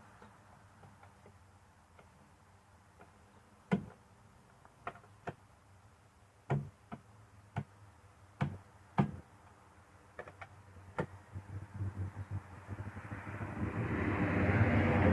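Scattered knocks and clanks of metal parts as a wheel is fitted onto a golf-cart buggy's axle hub, about a dozen separate hits. Over the last few seconds a steady noise with a low hum swells up and becomes the loudest sound.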